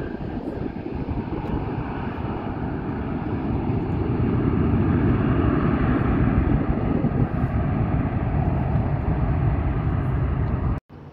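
Jet engine roar of a Boeing 737-800 rolling out on the runway after landing: a steady low rumble that grows louder about four seconds in, then cuts off abruptly near the end.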